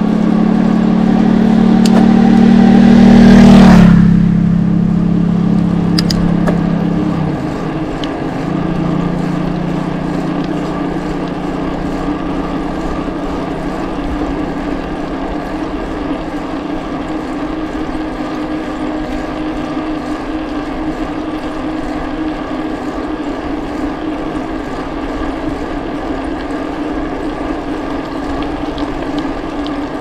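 A motor vehicle's engine passing close by, loudest about three and a half seconds in, with a brief rush of noise as it goes past, then dropping away by about eight seconds. A steady engine hum carries on behind it.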